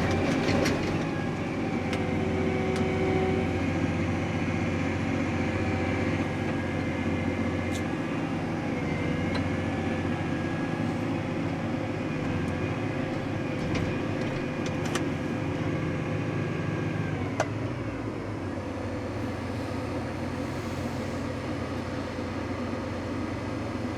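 Tractor engine running steadily, heard from inside the cab, with a few light clicks. About seventeen seconds in, the engine note drops and gets quieter as the engine slows.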